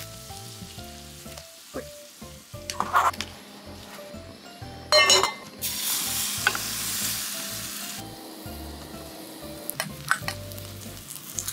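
Kimchi pancake (kimchijeon) batter sizzling in hot oil in a pan over a portable gas burner. A loud sizzle starts suddenly about five seconds in as the batter hits the pan, then settles, with a few clicks of a spoon against the pan; background music plays underneath.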